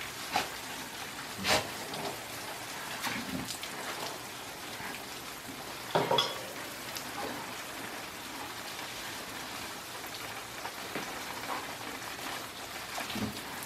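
Water from a garden hose spraying and pattering onto brick pavers, a steady rain-like hiss. A few short sharp knocks stand out above it, the loudest about a second and a half in and about six seconds in.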